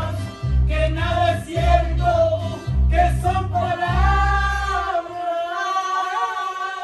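Music with a singing voice over a heavy bass beat; the bass drops out about five seconds in while the voice holds a long note.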